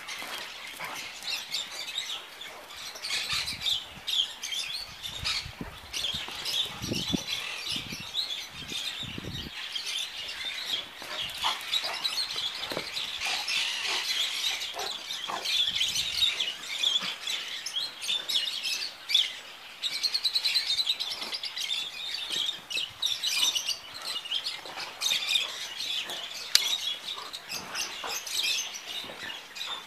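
Many small birds chirping and twittering in a continuous chorus, with a few low thuds near the start.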